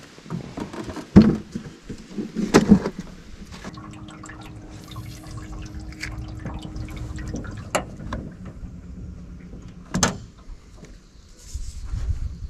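Two splashes of water in the first three seconds, with dripping; then a steady low hum and small clicks as a spinning reel is handled, with one sharp click about ten seconds in.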